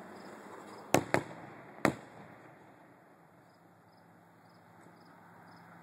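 Aerial fireworks going off about a mile away: three sharp bangs close together about a second in, each trailed by a short echo.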